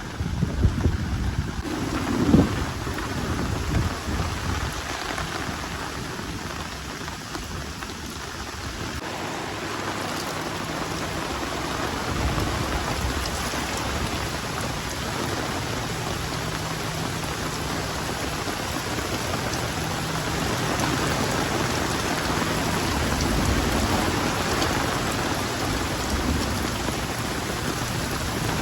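Heavy rain falling steadily in a thunderstorm, with a heavy low rumble in the first few seconds; the downpour grows a little louder near the end.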